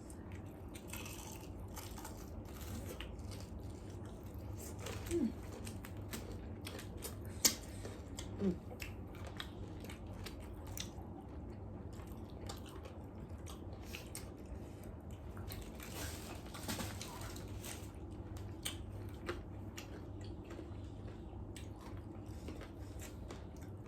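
Close-up eating sounds: someone biting and chewing spicy fried chicken, with many short crunches and wet mouth clicks over a steady low hum.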